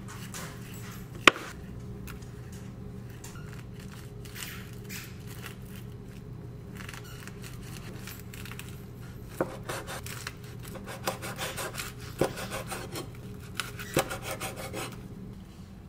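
A knife slicing a seaweed-wrapped rice roll on a wooden cutting board: rasping sawing strokes through the seaweed and sharp knocks of the blade hitting the board, mostly in the second half. A single sharp click comes about a second in, over a steady low hum.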